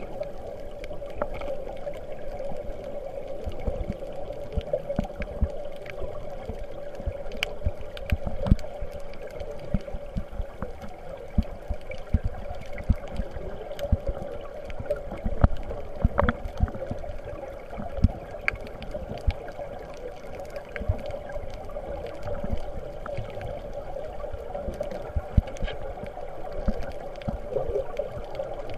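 Underwater ambience: a steady, muffled rush of water with a constant drone beneath it, scattered sharp clicks, and irregular low knocks of water moving against the microphone.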